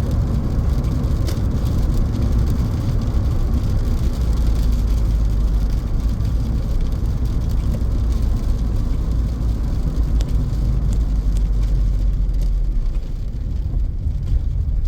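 Steady, loud rumble of road traffic passing on a highway, heaviest in the low end.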